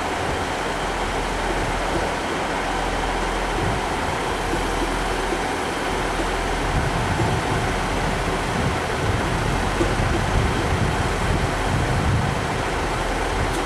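Northern diesel multiple unit idling at the platform: a steady low engine rumble under station background noise, the rumble heavier about halfway through.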